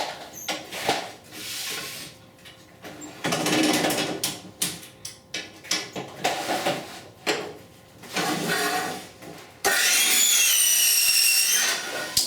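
Vinyl siding rustling and knocking as it is handled and lined up, then a power saw runs for about two seconds, its whine wavering as it cuts through the vinyl, and stops abruptly near the end.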